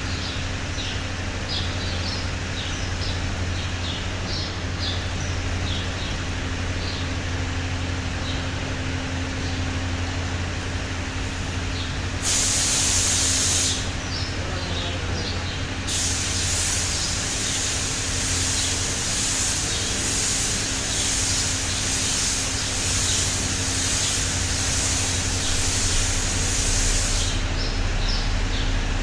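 Spray gun hissing as it lays top coat on a bus bumper: a short burst about twelve seconds in, then a long pass of about eleven seconds.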